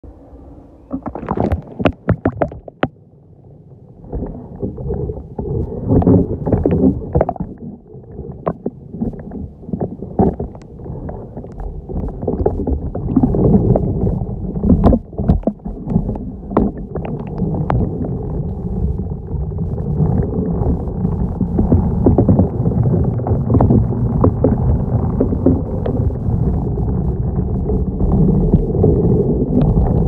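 Muffled underwater rumble and water movement with scattered knocks and scrapes as a manual pool vacuum head is pushed across the pool floor on its pole. The rumble grows louder and steadier over the second half.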